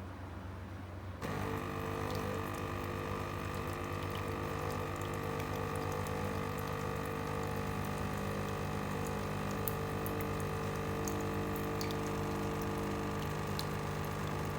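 HiBREW CM6863 espresso machine's 20-bar pump buzzing steadily as it pushes hot water through the brew head into a bowl, starting suddenly about a second in. This is a single-shot cleaning flush run without coffee.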